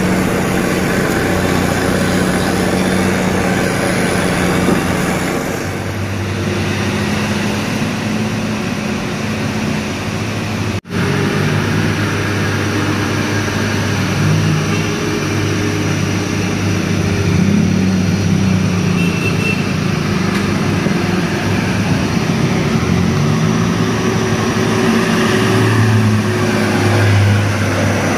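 Diesel engines of heavy Hino cargo trucks running under load as they crawl up a steep, winding grade: a steady low engine drone whose pitch wavers slightly. The sound cuts out for an instant about eleven seconds in, then the next truck's engine carries on.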